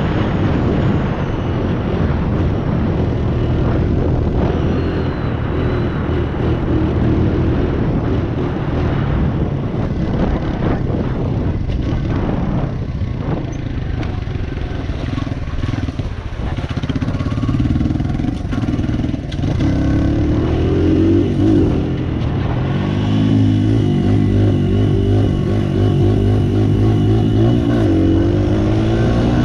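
Small 100 cc dirt bike engine running continuously as it is ridden, its pitch rising and falling repeatedly with throttle and gear changes.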